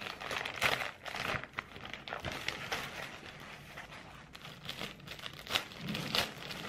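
A plastic mailer bag is torn open, and the clear plastic bag inside crinkles as it is handled, in irregular rustling bursts.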